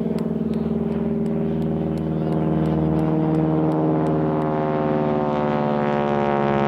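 An engine running steadily with a rapid pulsing note. From about two seconds in its pitch creeps slightly upward and it grows a little louder.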